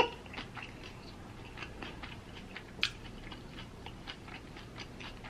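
A person chewing a mouthful of birria beef taco close to the microphone: soft, scattered mouth clicks and smacks, with one sharper click about three seconds in.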